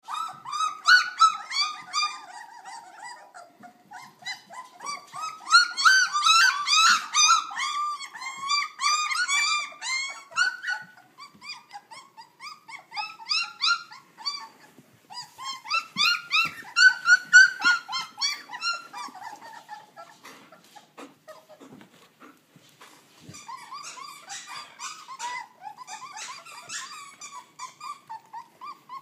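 A litter of Chinook puppies, not yet three weeks old, whining and squealing together in many short overlapping high-pitched cries. The cries come in bouts with brief lulls, loudest about six seconds in and again around seventeen seconds, and quieter for a few seconds past twenty.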